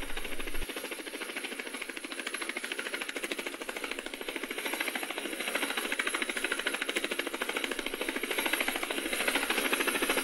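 A rapid, even mechanical rattling, a fast run of sharp ticks that grows slightly louder toward the end.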